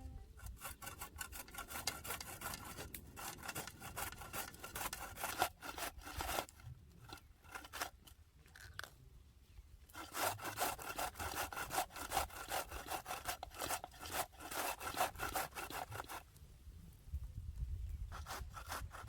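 Rapid rasping strokes of cabbage being grated by hand, pausing twice.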